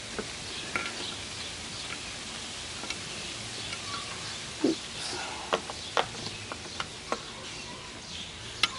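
Light metallic clicks and taps, scattered and irregular, as loose parts in the rusty cast-iron base of an old Craftsman jointer are handled, over a steady low hiss.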